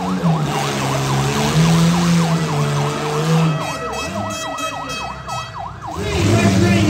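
A siren yelping in fast rising-and-falling sweeps, about three to four a second, over demolition derby cars' engines revving. The siren stops about six seconds in, and the engines grow louder.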